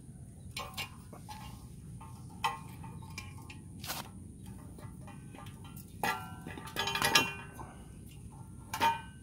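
Yamaha Byson motorcycle exhaust muffler and pipe clanking as it is handled and shifted on the ground: scattered metal knocks, several with a short ringing tone. The loudest cluster comes about seven seconds in.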